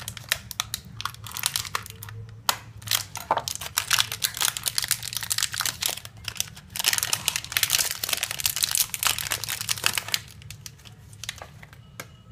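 Metallised plastic chocolate-bar wrapper crinkling and tearing as it is slit open with a knife and peeled off the bar: a rapid, irregular run of crackles, busiest a few seconds before the end and thinning out near the end.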